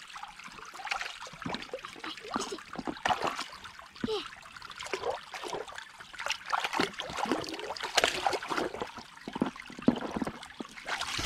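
Dog's muzzle working in a shallow muddy puddle: irregular small splashes, slurps and trickles of water.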